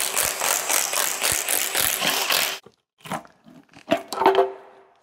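Cordless ratchet running as it spins valve-cover bolts out of a Ford 4.6 DOHC V8, for about two and a half seconds before stopping. A few light metal clinks follow, one ringing briefly.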